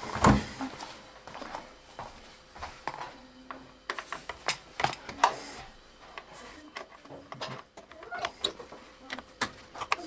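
Scattered clicks and light metallic knocks of a hand tool on the door hinge of a Bosch front-loading washing machine as the hinge screws are undone and the door is taken off.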